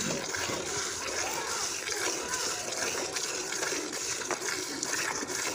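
Jets of milk squirting from a cow's teats into a metal bucket during hand milking: a continuous splashing and hissing of liquid striking the milk already in the pail.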